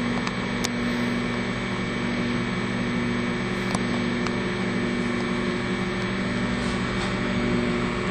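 Microwave oven running with a steady electrical hum, a bar of soap heating inside, with a few faint ticks.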